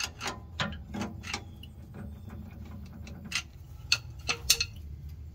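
Irregular sharp metallic clicks and ticks as a pick rocks the worn spider gears in an open rear differential, the gears clacking through their excess play. The loudest clicks come near the end. A steady low hum runs underneath.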